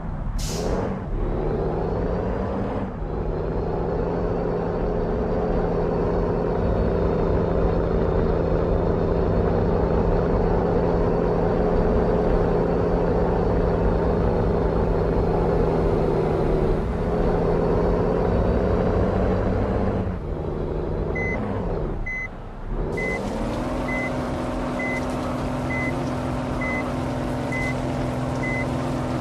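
Heavy truck's diesel engine running steadily. The revs drop about twenty seconds in and then settle at a new steady pitch. A brief hiss sounds near the start, and in the last several seconds a reversing alarm beeps about once a second.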